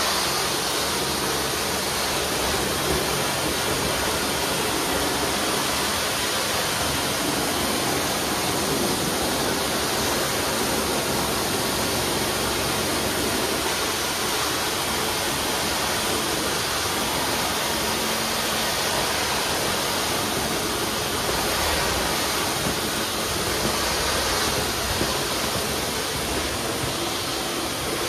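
Grout-cleaning machine spraying pressurized water onto bathroom tile grout, a steady rushing hiss at an even level throughout.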